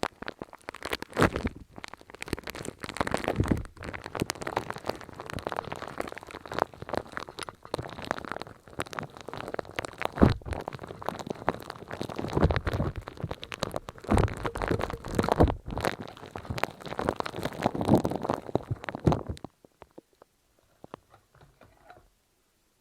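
Close-up ASMR trigger sounds: dense, continuous crackling and squishing with many sharp little pops, stopping suddenly a few seconds before the end.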